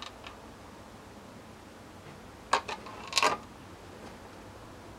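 Quiet background with a few sharp plastic clicks and knocks, two about two and a half seconds in and a quick cluster just after three seconds, from a plastic oil can and funnel being handled while engine oil is poured into a motorcycle.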